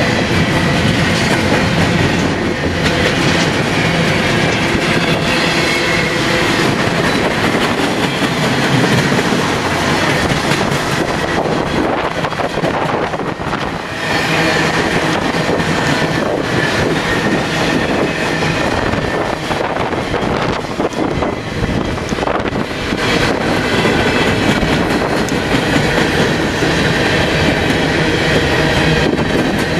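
Freight cars of a long train rolling past close by: a loud, steady rumble of steel wheels on rail, with many sharp clacks as the wheels cross rail joints.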